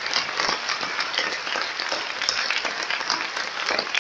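Audience applauding: many hands clapping at a fairly even level.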